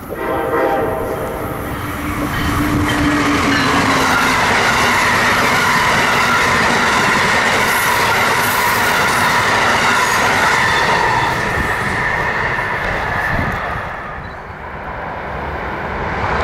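Amtrak passenger train going by at speed: a horn chord sounds at the start and its pitch drops a few seconds in as the locomotive passes, then the steady rumble and clatter of the passing Amfleet cars. It fades about two seconds before the end, then grows louder again as a second train approaches.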